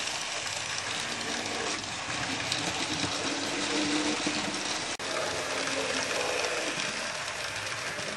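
HO-scale model freight train running along the track: a steady mechanical whir and clatter with fine irregular ticks, cutting out for an instant about five seconds in.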